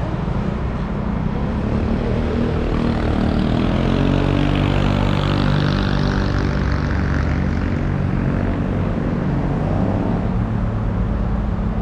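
An engine passing by: a steady engine note with a hiss that swells to its loudest about halfway through, then fades.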